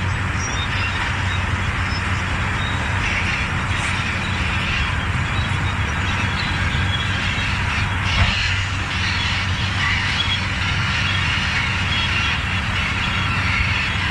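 Large crawler bulldozer at work in gravel: its diesel engine runs steadily under load beneath a continuous clatter and squeal of steel tracks, with a single sharp knock about eight seconds in.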